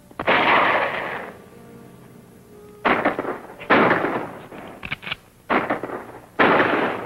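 Gunfire in an old western's shootout: about six gun shots at uneven intervals, each a sudden crack followed by a long echoing tail, with a quick cluster of shots near the middle.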